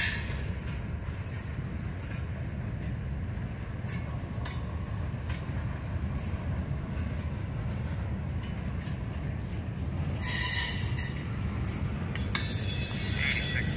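Freight train cars rolling past close by: a steady low rumble of wheels on rail with scattered clicks, and high wheel squeal about ten seconds in and again near the end.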